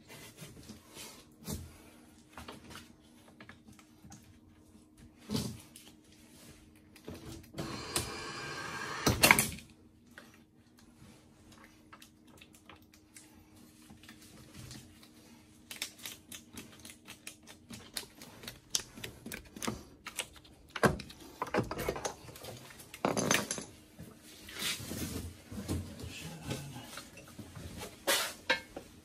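Roddie R8 pipe bursting machine pulling its steel cable: a steady low hum under irregular metallic clicks and clanks, which come thicker in the second half, with a louder burst lasting about two seconds about eight seconds in.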